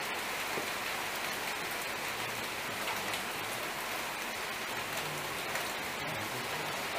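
Steady hiss with many fine crackles, like rain falling.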